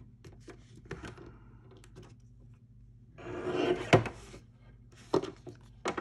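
Paper trimmer cutting through faux-leather-finished book-page paper: the blade is drawn along its rail in a swish of about a second, ending in a sharp click. A few lighter clicks follow as the cut piece is handled.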